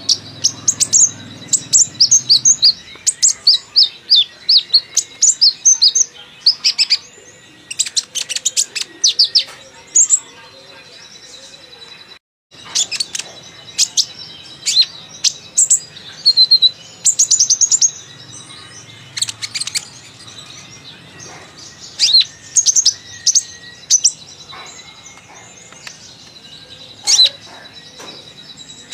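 Kolibri ninja, a sunbird, singing a chatty song: quick runs of high, thin chirps and trills in bursts, with borrowed phrases of other birds' songs mixed in. The sound cuts out for a moment about twelve seconds in.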